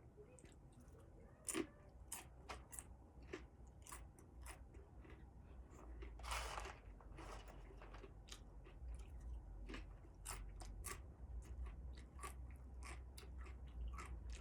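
A person chewing and crunching a crunchy snack with the mouth close to the microphone: irregular crisp crunches, with a longer, louder crunch about six seconds in.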